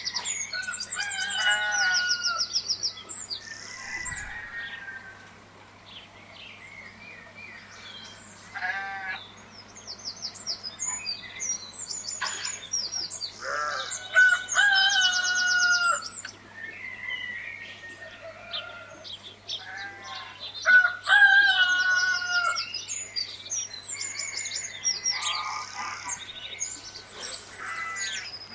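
Chickens clucking with a rooster crowing, and small birds chirping and trilling in many short, scattered calls.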